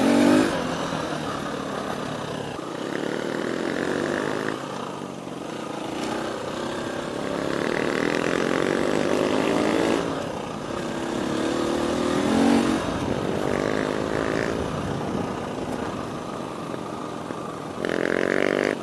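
Husqvarna FE350 four-stroke single-cylinder dirt bike engine heard from on board while riding, its note rising and falling several times as the throttle is opened and closed.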